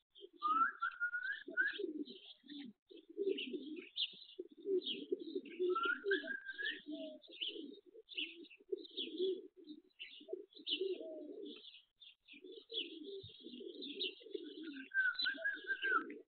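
Pigeons cooing almost continuously, with small birds chirping high above them. A short rising whistled note sounds three times, near the start, about six seconds in, and near the end.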